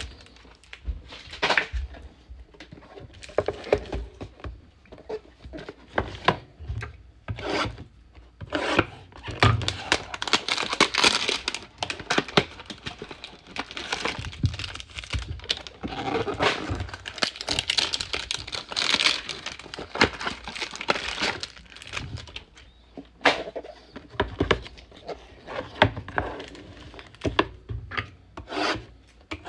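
Cardboard trading-card hanger boxes and their wrapped card packs being handled and opened: irregular rubbing, scraping and rustling of cardboard and plastic wrap, with cards and boxes sliding and tapping on a countertop.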